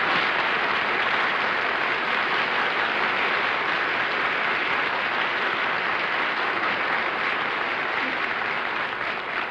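Studio audience applauding steadily, thinning slightly near the end.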